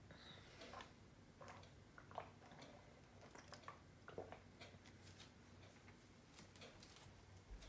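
Near silence: quiet room tone with a faint low hum and scattered faint clicks and rustles.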